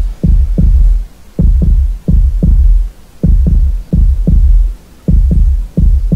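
Heartbeat sound: steady paired low thumps, lub-dub, about one beat a second.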